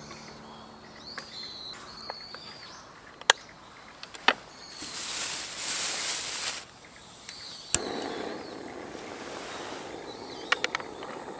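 Sharp clicks of a metal stovetop waffle maker being shut, a hiss of about two seconds, then a click and a SOTO gas burner running with a steady rush, and a quick run of metal clinks as the waffle maker is set on the burner's supports. Small birds chirp throughout.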